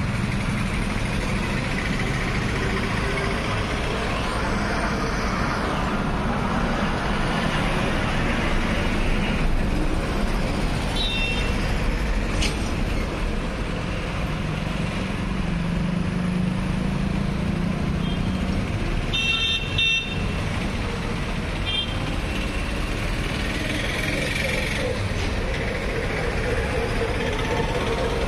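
Street traffic running steadily, with engine rumble and several short vehicle horn honks, the first about ten seconds in and a few more close together around twenty seconds.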